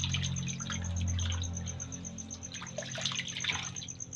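Water sloshing and splashing in a plastic basin as an octopus is squeezed and rubbed by hand to clean it, in irregular splashes. Behind it run a steady low hum and a cricket's rapid, even chirping.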